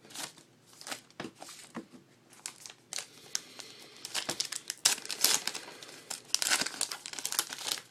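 A foil trading card pack wrapper being torn open and crinkled by hand, in irregular crackly rustles that get busier in the second half.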